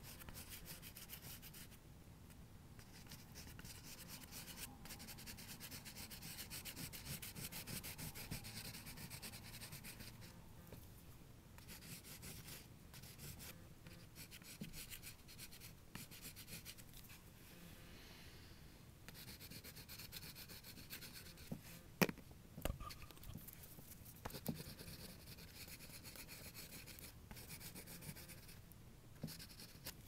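Pastel stick scratching across paper in runs of quick drawing and shading strokes, with short pauses between runs. A few sharp taps about two-thirds of the way in.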